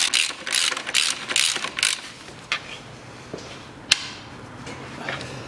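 Ratchet wrench clicking in quick repeated strokes as it tightens the centre bolt of a new engine mount bracket, stopping after about two seconds. A single sharp click follows about four seconds in.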